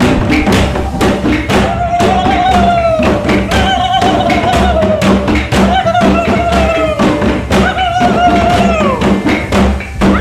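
Music: a steady beat of sharp percussive strokes, about three to four a second, under a melody in four repeated phrases, each falling in pitch at its end.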